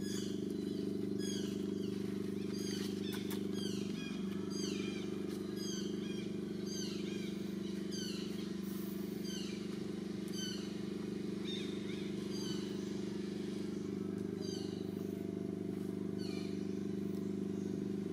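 Many short, high-pitched calls, each falling steeply in pitch, repeated a few times a second over a steady low hum.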